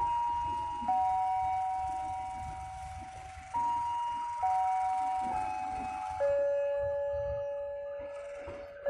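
Railway station public-address chime playing a slow melody of bell-like electronic notes. Each note starts suddenly and rings as it fades, a new one about every one to two seconds, and from about six seconds in a long low note is held. A low rumble runs beneath it.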